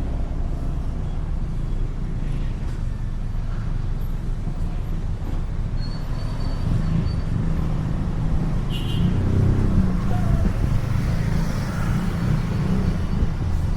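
Street traffic: a steady low rumble of passing motor vehicles, with an engine growing louder about halfway through and easing off near the end.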